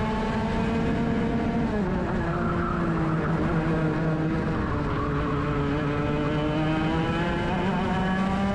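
Racing kart's two-stroke engine under load, heard from on board. The engine note drops sharply about two seconds in as the kart slows for a bend, then rises steadily as it accelerates out again.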